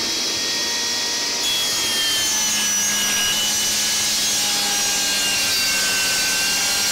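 Metabo HPT 36V MultiVolt brushless 10-inch table saw ripping a sheet of plywood, the blade cutting steadily with a constant high tone over the cutting noise.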